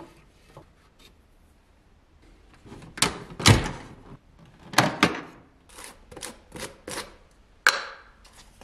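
Hard plastic knocks and clicks from a toy Miele washing machine: a heavy knock as its door is pushed shut about three seconds in, then a run of sharp clicks and taps, and a sharper snap near the end.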